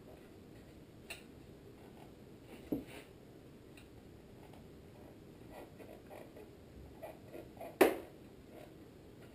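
Handling noises from rubber fuel line being fed in behind a small engine's flywheel: scattered light clicks and knocks. A sharper knock comes about two and a half seconds in, and the loudest near the end.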